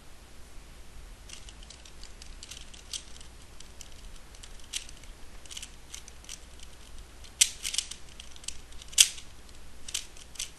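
Plastic Guhong speedcube being turned one-handed: irregular runs of quick, light clicks as the layers snap round, with a few louder, sharper clacks near the end.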